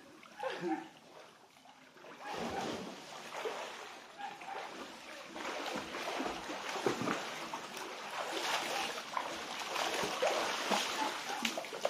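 Swimmers' arm strokes and kicks splashing in open water, quiet for about the first two seconds, then steady irregular splashing.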